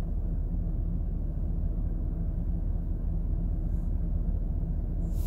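Touchless car wash gantry spraying water over a van, heard from inside the cab as a steady, muffled low rumble.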